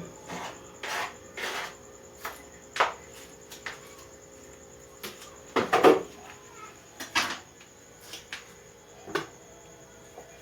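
Kitchen knocks and clatters: utensils, bowl and pan striking each other as chopped vegetables are added to a pan, a dozen or so separate sharp knocks, the loudest about six seconds in. A faint steady hum runs underneath.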